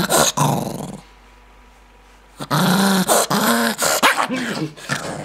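Maltese dog growling angrily: a short bout at the start, then a longer one from about two and a half seconds in whose pitch rises and falls, broken by brief pauses.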